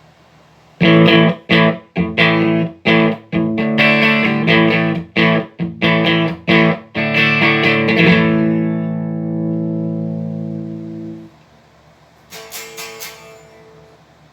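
Electric guitar played through a Supro Black Magic 1695T tube amp, its channel one working again after a broken 12AX7 preamp tube was replaced. A run of short, choppy chords gives way to a chord left to ring and fade, which is cut off suddenly about eleven seconds in, followed by a few quick strums near the end.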